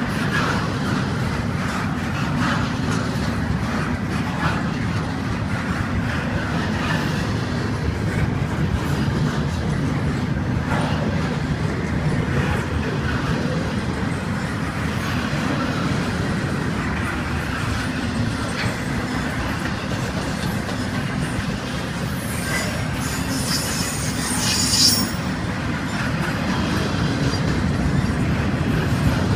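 Double-stack intermodal well cars rolling past at speed: a steady, heavy rumble of steel wheels on rail with occasional clacks. Near the end a high-pitched squeal rises over it for a few seconds.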